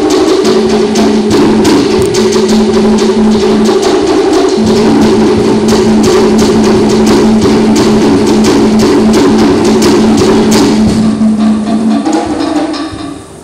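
Cook Islands drum ensemble: wooden slit drums (ka'ara) beaten with sticks in a fast, dense rhythm together with other drums. The playing winds down and stops near the end.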